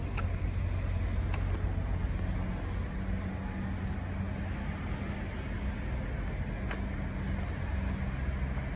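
Steady low rumble of street traffic, with a vehicle engine humming at a steady pitch through most of it.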